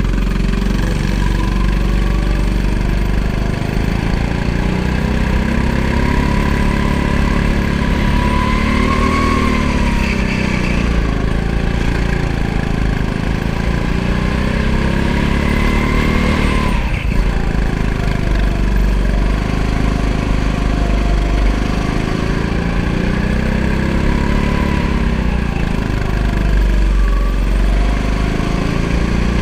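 Go-kart engine running hard during a lap, its pitch rising and falling repeatedly as the driver accelerates down the straights and lifts off for the corners.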